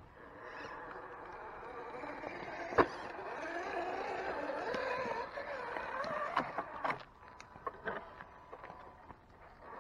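Axial SCX10 RC rock crawlers' electric motors and geared drivetrains whining, the pitch rising and falling with the throttle as they climb over rock. A sharp knock about three seconds in, and a few more clicks and knocks near the end as the whine drops away.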